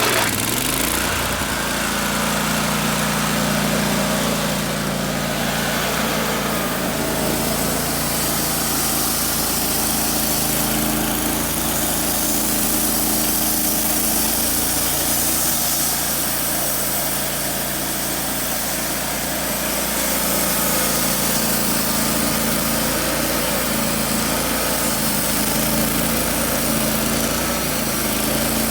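Small gasoline engine of a Wood-Mizer LT15 Wide portable sawmill starting just at the beginning, climbing in speed over the first second or so, then running at a steady speed.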